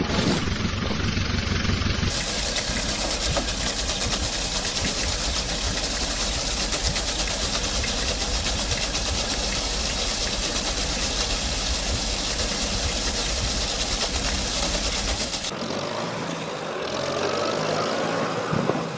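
Tractor engines running across several clips cut together. For most of the stretch one engine runs steadily with a dense, rapid chug and much hiss. After a cut near the end a quieter engine takes over, rising in pitch.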